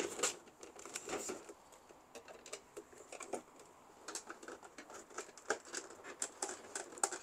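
Irregular light clicks and taps of plastic as hands and a flat screwdriver work at a Canon PIXMA MG2540s inkjet printer around its rear paper feed, searching for debris that jammed it.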